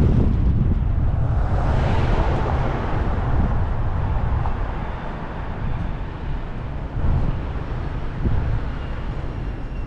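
Car on the move: a steady low rumble of road and engine noise with wind hiss, the hiss swelling for a couple of seconds about two seconds in, then easing.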